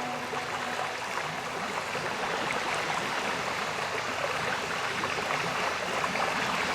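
Cascading waterfall: a steady, even rush of falling water.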